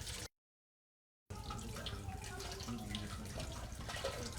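Water running and splashing in a container while microbe cultures are mixed into about two litres of water. The sound cuts out completely for about a second near the start.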